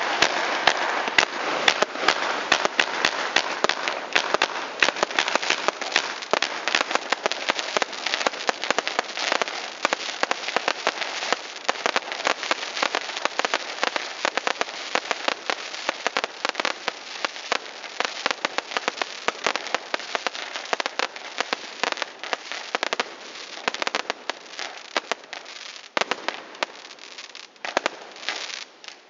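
Fireworks crackling: a dense, rapid stream of countless sharp pops, easing briefly near the end before a final flurry.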